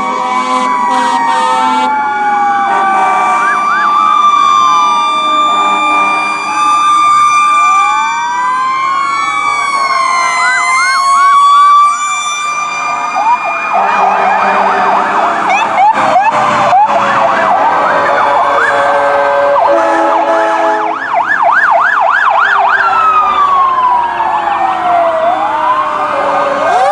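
Sirens from several passing fire trucks sounding at once, overlapping slow wails that rise and fall. In the second half a faster yelp joins them, along with some steady held tones.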